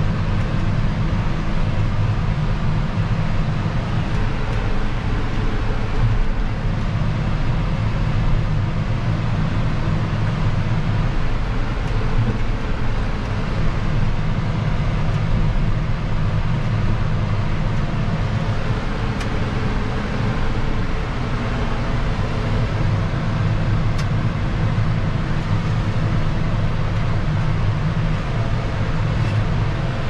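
John Deere 6155R tractor's six-cylinder diesel engine running steadily under load while pulling a reversible plough, heard from inside the cab.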